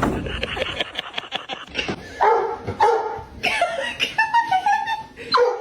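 A dog vocalizing: a string of short whines and yips starting about two seconds in, some held briefly and some sliding in pitch, after a stretch of rustling and clicks.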